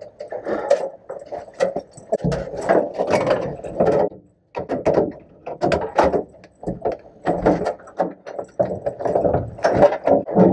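Irregular clicks, knocks and rustling inside a stripped race car's bare metal cabin as the driver moves in the seat and handles harness and gear, with a short lull about halfway through.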